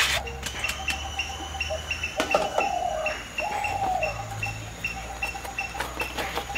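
Birds calling: a short chirp repeated about three times a second, with a couple of falling whistled calls around the middle. A few light clicks and rustles near the end as a banana leaf is handled.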